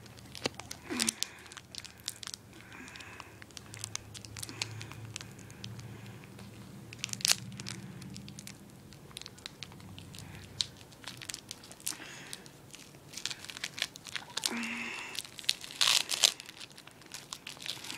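Foil wrapper of a Pokémon trading card booster pack crinkling and tearing as it is torn open by hand. Irregular sharp crackles run throughout, loudest about seven seconds in and again a couple of seconds before the end.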